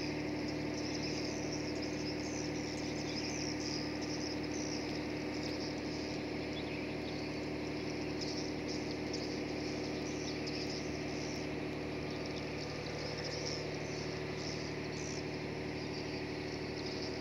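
Many short, high chirps and twitters from a flock of small birds circling overhead, over a steady low mechanical hum.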